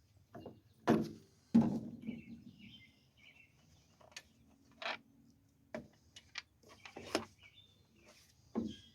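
Scattered clunks and clicks of parts and a cover being handled and taken off a push mower's Briggs & Stratton engine during teardown, the loudest knock about a second and a half in. Faint bird chirps in the background.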